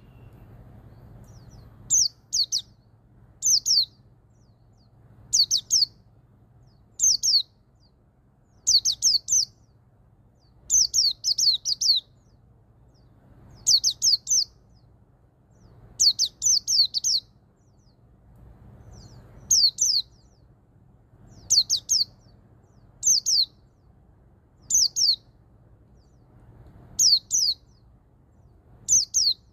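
White-eye (pleci) singing in the 'ngalas 12345 ketukan' style: short phrases of two to five quick, high, falling notes, repeated every second or two.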